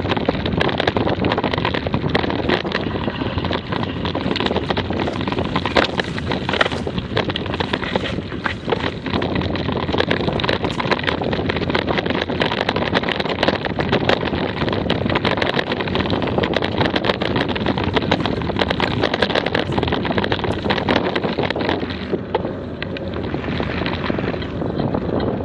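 Bicycle rattling and clattering over a rough dirt trail, a dense run of knocks and tyre noise with wind buffeting the microphone. About 22 s in the rattle gives way to a smoother, quieter hiss of tyres and wind on tarmac.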